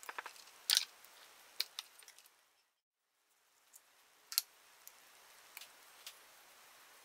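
Scattered small metal clicks and taps of a T-handle hex key and screws on a chainsaw as its anti-vibration mounts are undone, with a brief total silence near the middle.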